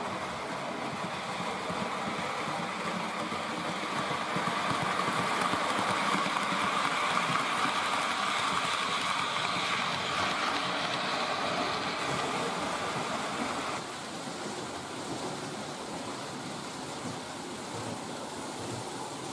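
H0-scale model train running on the layout's track: a steady whir of wheels on rails and motor that swells as the train passes nearest, then drops suddenly to a quieter level about two-thirds of the way through.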